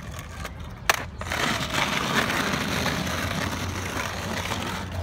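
A sharp clack about a second in, then skateboard wheels rolling over asphalt with a steady gritty noise.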